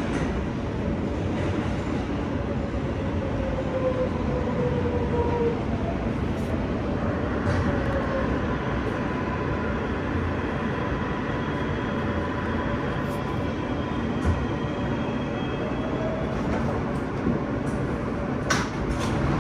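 New York City subway L train running along the track, heard from inside the car: a steady rumble with a whining tone that glides slightly in pitch, and a few sharp clicks near the end.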